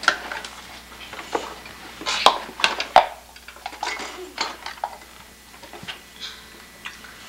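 Irregular knocks and clinks of household items clattering in a wooden kitchen drawer as a toddler rummages and shifts about inside it, handling a plastic cup.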